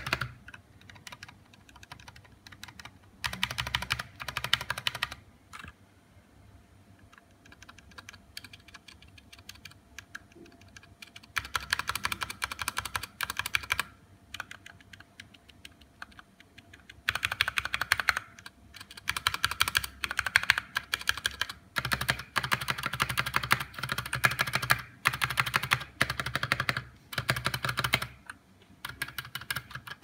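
Keys of a KBD75 mechanical keyboard with Gateron brown switches, mainly the spacebar, being pressed rapidly and over and over in runs of clicks with short pauses between them. The stabilizers have been lubed with grease to quiet their rattle.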